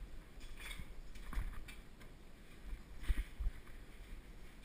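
A bicycle rolling across indoor floors: irregular clicks and rattles from the bike, with a few low thumps, the loudest about three seconds in.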